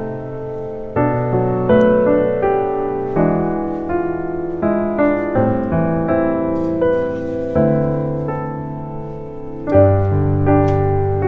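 Background piano music, a melody played over chords.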